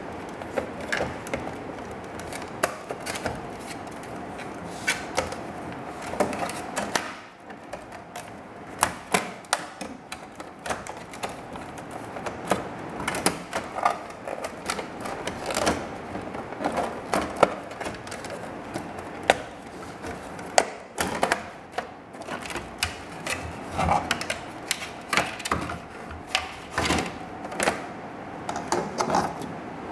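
Irregular plastic clicks, knocks and rattles as the frame of a 2019-on Chevy Silverado/GMC Sierra side-mirror housing is handled and worked loose by hand. The clicks come several a second, with a short pause about seven seconds in.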